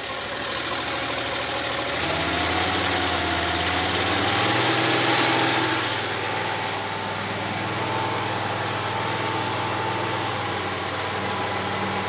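Loncin petrol engine of a homemade skid steer running, its speed raised from idle about two seconds in and held higher, easing back slightly about six seconds in.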